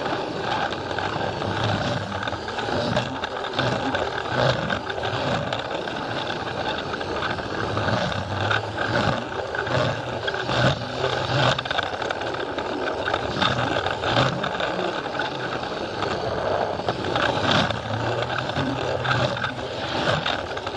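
Plarail battery-powered toy train running on plastic track: the small electric motor and gearbox whirring steadily, with frequent irregular clicks and rattles from the wheels over the track, heard from the camera car riding on the train.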